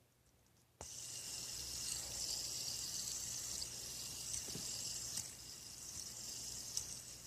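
A fidget spinner spinning, giving a steady high whirring hiss that starts suddenly about a second in, with a few faint clicks.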